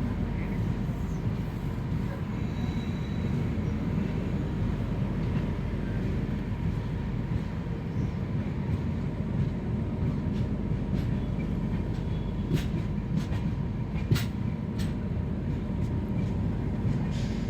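Express passenger train running on the rails: a steady low rumble, with a few sharp clicks in the second half.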